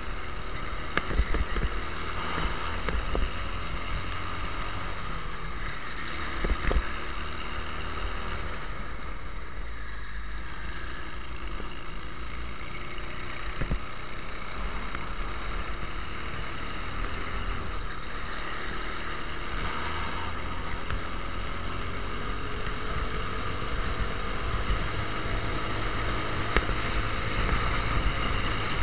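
Racing kart engine heard from on board, running under load with its pitch rising and falling as the throttle is worked through corners. Wind rumbles on the microphone, with a few sharp knocks along the way.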